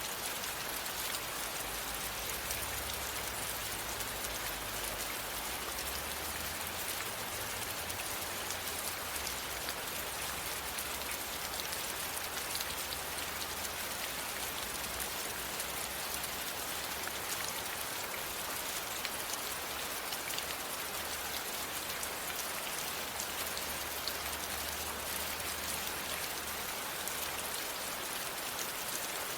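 Steady rain falling, a dense even hiss of drops with fine scattered patter, starting abruptly at the outset.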